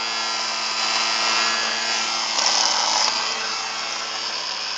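Fan motor of a toy hover soccer ball running steadily as the disc floats and slides over a tile floor, a pretty noisy whir that sounds like a lawnmower.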